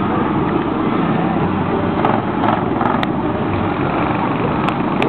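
Small engines on motorized bar stools running steadily, with a few sharp clicks about two to three seconds in and again near the end.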